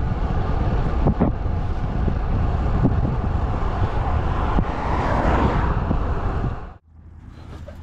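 Wind buffeting the microphone while riding a road bike at speed, a loud steady rush that swells about five seconds in. It cuts off suddenly near the end to a much quieter steady road noise.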